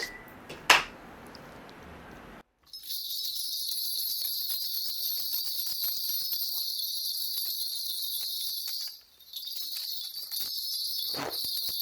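A cluster of small shaman's ritual bells shaken in a continuous high jingle, with a brief break about nine seconds in. A single sharp click comes just before the jingling starts.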